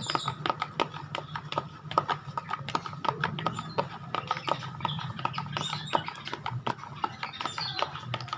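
A spoon clicking and tapping against a bowl as a slime mixture is stirred: rapid, irregular taps.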